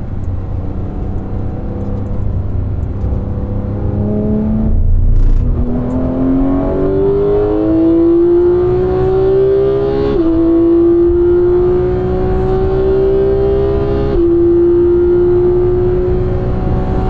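Porsche 991 GT3's flat-six engine under load, its pitch dropping briefly about five seconds in, then climbing steadily as the car accelerates, with two quick upshifts about ten and fourteen seconds in, each a sudden drop in pitch before it climbs again.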